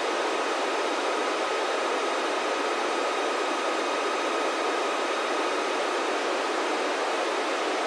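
Steady FM receiver hiss from a Kenwood dual-band handheld tuned to the ISS 145.800 MHz downlink, with no signal coming through between the astronaut's transmissions. A faint steady whistle runs under the hiss and fades out about five to six seconds in.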